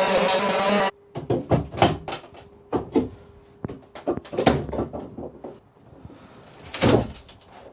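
Music that cuts off abruptly about a second in, then irregular knocks, clunks and scrapes of demolition work on a boat's interior woodwork, the loudest clunk near the end.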